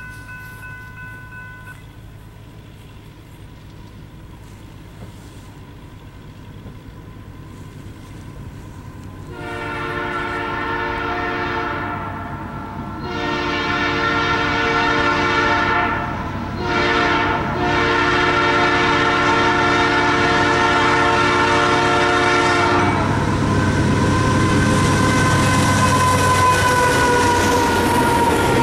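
Freight locomotive horn, sounded by the lead BNSF AC44CW, blowing the grade-crossing signal of two long blasts, a short and a long as the train approaches. In the last few seconds the lead diesel locomotives pass close with a loud engine rumble and the wheels on the rails.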